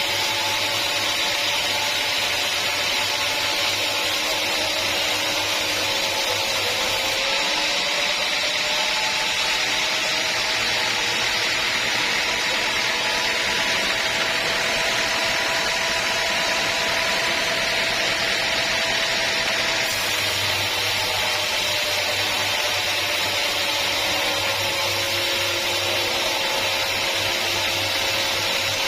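A sawmill saw running steadily through a teak log, with a dense hiss of cutting and a steady whine that rises slightly in pitch about seven seconds in and settles back after about twenty seconds.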